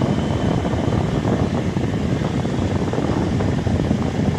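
Steady rushing of a 2024 Chevrolet Suburban's cabin air-conditioning blower, with both climate zones set to LO for full cooling.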